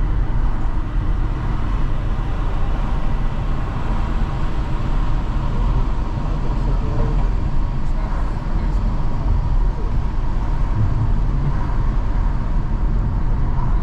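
Car on the move: steady road and engine noise, heard from inside the cabin.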